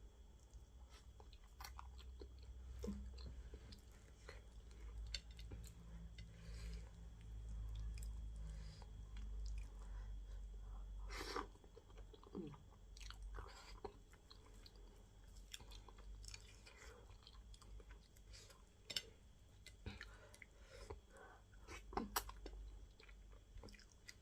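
A person chewing and smacking their lips on a mouthful of okra fish stew and plantain fufu, with scattered wet clicks and smacks.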